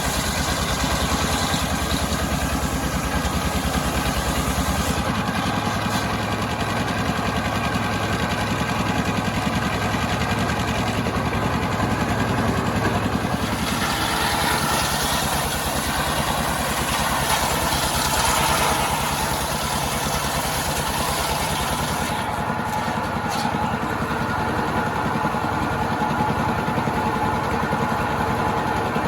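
Two-stroke chainsaw engine running steadily, its note shifting a few times as it works.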